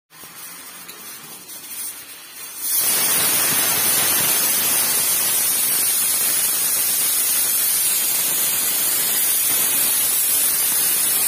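Aluminium pressure cooker blowing its whistle: the weight lifts and steam vents in a loud, steady hiss that starts abruptly about three seconds in, with quieter hissing before it. This is one of the whistles that show the cooker is up to pressure and that are counted to time the cooking.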